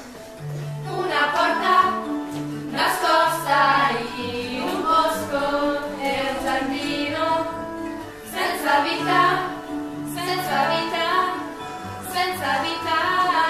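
A song with a female voice singing over instrumental accompaniment, in phrases of a couple of seconds each.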